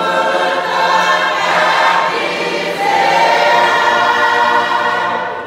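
Cook Islands Christian Church congregation singing a hymn together in many voices, holding long notes, the singing dying away near the end.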